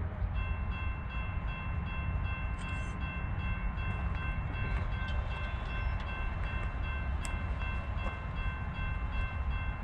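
Norfolk Southern freight train approaching out of sight: a steady low rumble with a high, steady ringing tone that starts just after the beginning and cuts off near the end.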